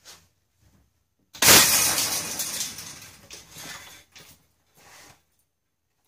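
Tensioned garage-door lift cable being cut and letting go: a sudden loud bang about a second and a half in, then a couple of seconds of rattling and clatter as the freed cable lashes the wall, dying away in a few smaller knocks.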